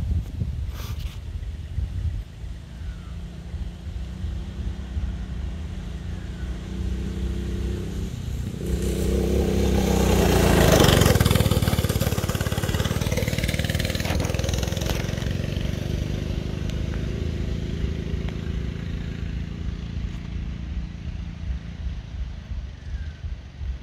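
Small off-road vehicle's engine running, growing louder as it comes close, peaking about eleven seconds in as it passes by, then slowly fading as it moves away.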